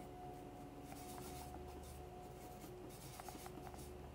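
A paintbrush scrubbing and mixing oil paint on a palette: a faint, soft scratching, with a few light ticks about three seconds in.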